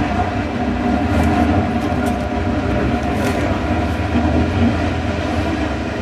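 Loud, steady mechanical rumble with several steady hum tones running through it.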